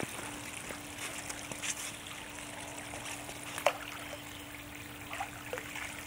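Steady trickling and running of pool water, with a faint steady hum that starts just after the opening and a few light clicks of hoses being handled.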